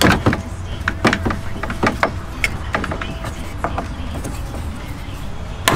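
Irregular light clicks and knocks of hand tools and plastic trim being worked while screws are taken out to free a front panel of a Toyota FJ Cruiser, over a steady low rumble.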